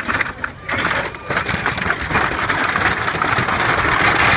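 Excavator bucket crushing down through a Quonset hut's corrugated metal roof: a dense crunching and crackling of buckling sheet metal and breaking framing, full of small snaps. It starts with a short burst, then runs thick from under a second in.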